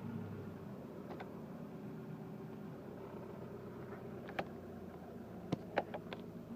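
Hyundai Grand Starex engine idling steadily, with a few sharp clicks: one about a second in, one past the middle, and a quick cluster of three or four near the end.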